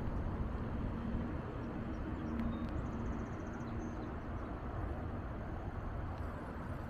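Wind rumbling over the microphone of a camera carried on a moving bicycle, a steady low rush. About three seconds in there is a brief, faint, rapid high ticking.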